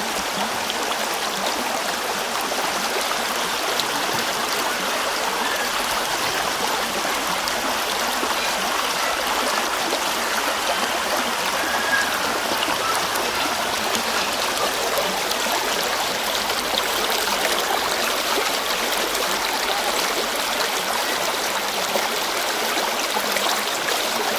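Mountain river running over rocks in snowmelt: a steady, dense rush of water with fine splashing and gurgling.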